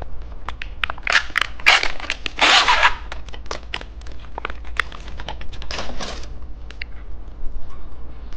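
Plastic candy wrapper crinkling and being torn open, a run of crackles and clicks with longer rips about one to three seconds in and again around six seconds.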